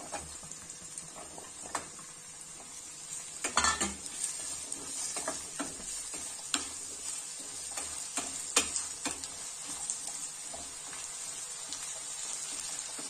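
Cubed potatoes and onions sizzling steadily in a little oil in a kadai, stirred with a wooden spatula that gives scattered knocks and scrapes against the pan. A louder clatter comes about three and a half seconds in.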